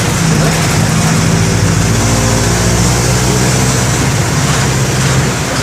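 Mercedes-Benz OM-924 LA four-cylinder inline turbo-diesel engine of an OF-1722M bus running under way, its pitch rising gently for a couple of seconds in the middle.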